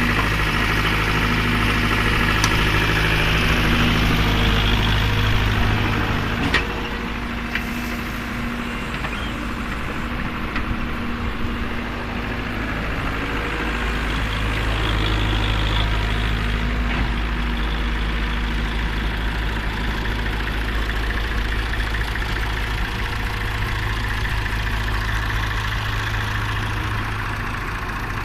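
Diesel engine running steadily at idle, with one sharp knock about a quarter of the way in.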